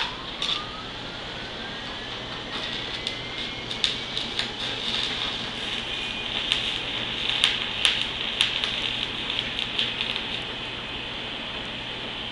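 An electric motor spinning up, its whine rising steadily in pitch over the first few seconds and then holding, over a steady machine hiss and hum, with scattered sharp clicks and knocks.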